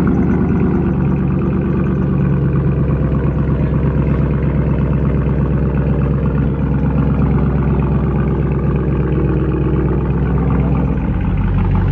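Car engine idling steadily, its note shifting slightly near the end.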